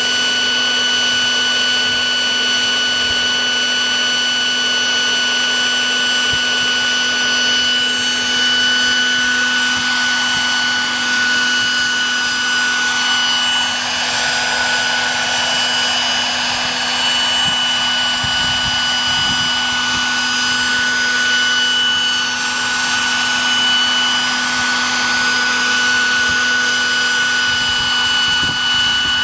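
Radio-controlled scale MD900 model helicopter running at flight speed as it lifts off and hovers, a steady high whine of its drive over the whir of the rotors.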